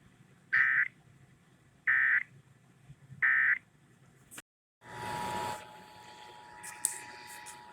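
EAS end-of-message signal: three short, identical bursts of warbling digital data tones, about 1.4 seconds apart, marking the end of an emergency alert system test. After a moment of dead silence comes a burst of hiss, then a steady tone under a low hiss.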